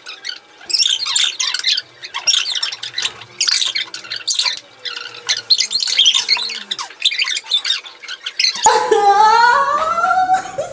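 Rapid, high-pitched, bird-like chirping and squawking. About eight and a half seconds in, loud laughter breaks in suddenly and carries on to the end.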